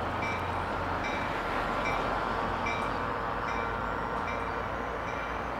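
NJ Transit diesel locomotive running with a steady low engine hum, and a faint high ringing tone repeating about every half second.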